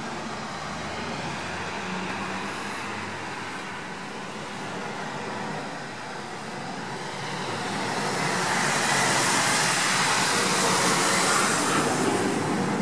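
Road traffic noise, with a vehicle passing that swells into a loud hiss about two-thirds of the way in and then fades.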